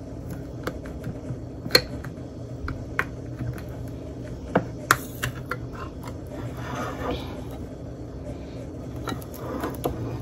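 Scattered light clicks and knocks of kitchen items being handled at a counter, over a steady low hum.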